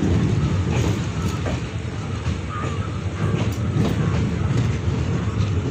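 Passenger train coaches rolling past close by as the train pulls out of the station: a steady rumble of wheels on the rails with scattered clicks.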